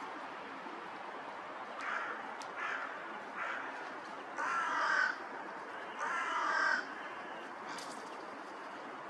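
Hooded crow cawing: five caws, three short ones followed by two longer, louder ones, over a steady background hiss.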